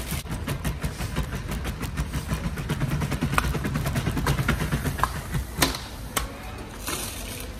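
Plastic supermarket shopping cart being pushed fast, its wheels and basket rattling steadily over the floor, with a couple of sharp knocks about three-quarters of the way through.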